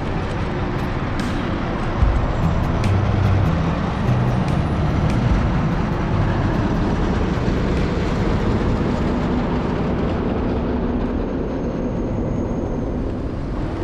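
Traffic and ride noise from a handlebar-mounted camera on a moving electric scooter: steady wind and road noise on the microphone, with a San Francisco cable car running alongside on its rails. The noise gets louder about two seconds in and stays loud.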